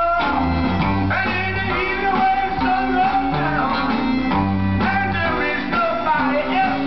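Vinyl single playing on a turntable: a 1960s rock and roll band recording in a passage with no sung words, guitar to the fore over bass and drums.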